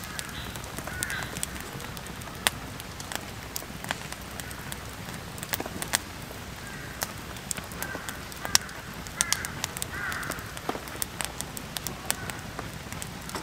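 Wood campfire crackling with frequent sharp pops, and a bird calling faintly a few times in the background.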